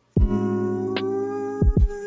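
Background music: a held, slowly gliding melody line over steady bass notes, with a few low thumps, two close together near the end.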